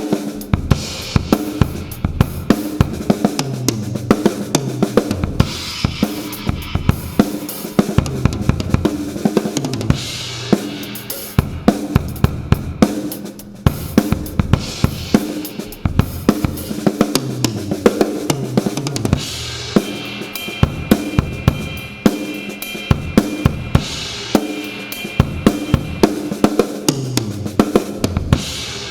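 Acoustic drum kit played in a steady rock groove, with kick, snare and cymbals, recorded through a Yamaha EAD10 drum microphone with compression and reverb dialled in. A bass line steps downward underneath in a repeating phrase.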